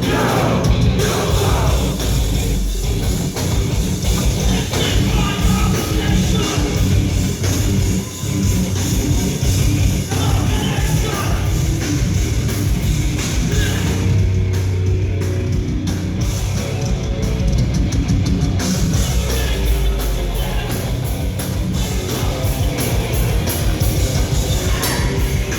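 A heavy rock band playing loud, with distorted guitars, a drum kit and vocals.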